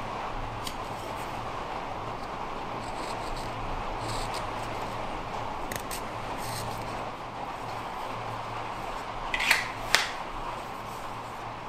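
Knife carving small cuts into a wooden spatula, with faint short slicing clicks here and there over a steady rushing background noise. Two louder sharp scrapes come near the end, about half a second apart.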